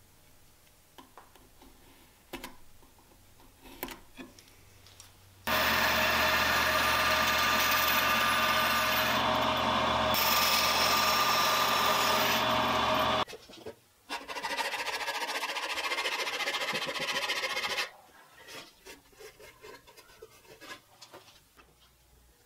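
Bandsaw running and cutting a taper into the bottom of a wooden cabinet stile, a loud steady saw noise with a low hum that starts abruptly about five seconds in and lasts about eight seconds; a second, shorter stretch of sawing follows after a brief break. Before it come faint pencil and ruler ticks, and near the end faint clicks.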